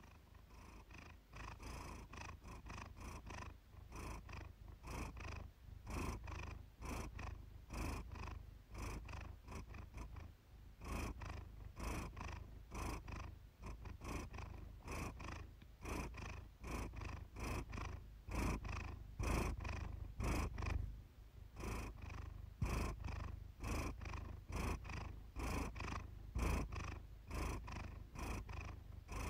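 Siamese cat purring steadily and rhythmically, the purr swelling and fading about once a second.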